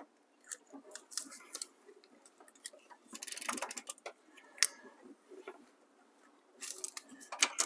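Ratchet clicking as cylinder head bolts on a HEMI 5.7 V8 are angle-tightened: scattered single clicks, then two short runs of rapid clicking, about three seconds in and again near the end.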